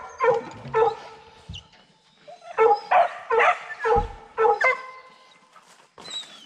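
Bear hounds barking in short, pitched bursts: a couple of barks near the start, then a run of about five barks in the middle, with a low thump about four seconds in.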